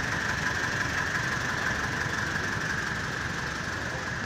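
Diesel-sounding engine of a Mahindra Scorpio SUV idling steadily, with a low rumble and a light knocking.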